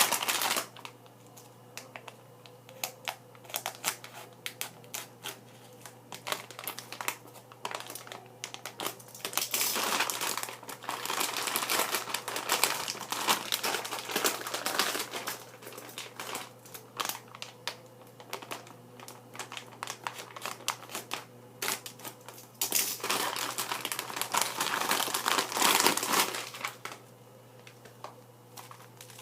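Plastic packaging crinkling and rustling as it is handled, in two longer bursts with scattered clicks and taps between them, over a faint steady hum.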